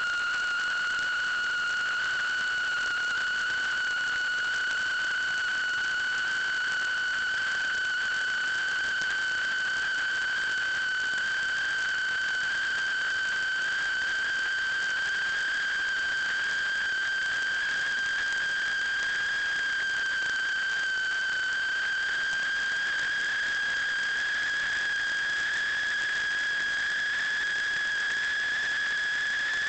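A steady high whistling tone with overtones, creeping slowly upward in pitch, over a light hiss.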